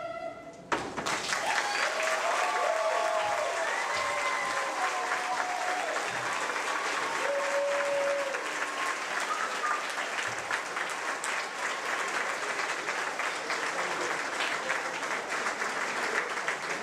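Audience applauding steadily after the closing song's last sung note cuts off under a second in, with a few voices calling out over the clapping early on.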